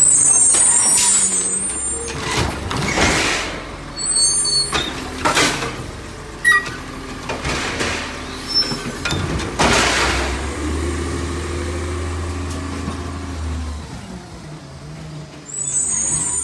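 Labrie Automizer natural-gas garbage truck working, its engine running steadily. A sharp hiss of released air comes at the start and again near the end, with several heavy thuds in between, and the engine note grows louder for a few seconds in the second half.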